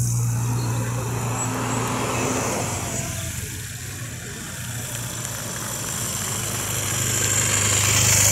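Engines of the race's escort cars and motorbike running past slowly alongside a group of cyclists: a steady engine hum that dips in the middle and swells again near the end as the vehicles come closer.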